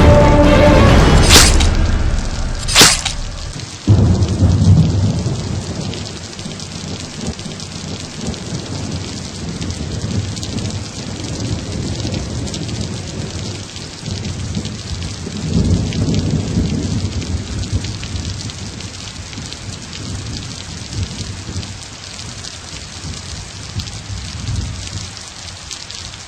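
Rain and thunder: two sharp cracks in the first three seconds, then a heavy low rumble that sets in suddenly and rolls on under a steady rain hiss, swelling again about two-thirds of the way through and slowly dying down.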